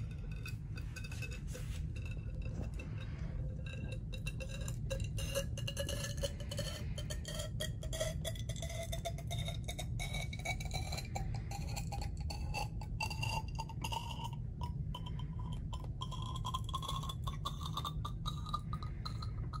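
Ethyl alcohol poured from a plastic wash bottle into a narrow graduated cylinder: liquid running in with many small clicks, and a tone that rises steadily as the cylinder fills.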